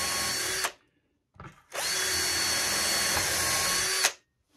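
Cordless drill boring through a white oak and epoxy board through a drilling jig, running steadily with a high whine. It stops under a second in, gives a brief blip, then runs again for about two seconds before stopping.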